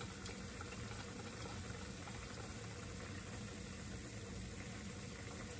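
Soup simmering in a frying pan over a gas burner: a faint, steady hiss and hum.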